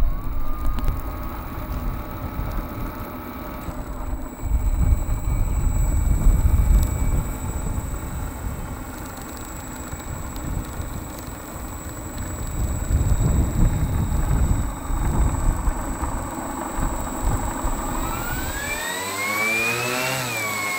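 Low rumbling noise with a faint steady whine through most of the clip. Near the end the F7F Tigercat model's twin engines run up: a rising whine that levels off into a steady high-pitched run.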